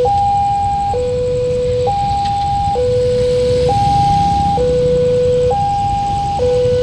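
Railway level-crossing warning siren, the crossing's new electronic alarm, alternating steadily between a higher and a lower tone, each held just under a second, over a steady low rumble.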